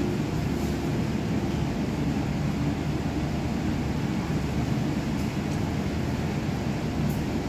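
Steady low background rumble that does not change, with no distinct events.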